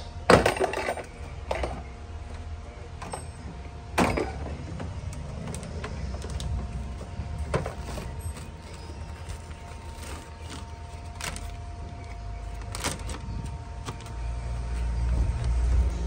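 Plastic retaining clips of a Toyota Hilux front door trim panel popping loose as the panel is pulled off the door: a sharp snap about half a second in and another around four seconds in. Scattered clicks and rustles follow as the panel and the door's cables are handled, and a low rumble builds near the end.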